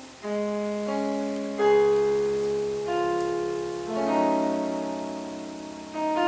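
Slow piano music: soft chords and single notes struck every second or so, each left to ring and fade.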